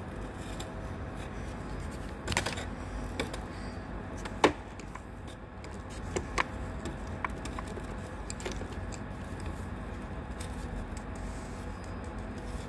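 Scattered light clicks and knocks of hand tools or parts being handled, the sharpest about four and a half seconds in, over a steady low hum.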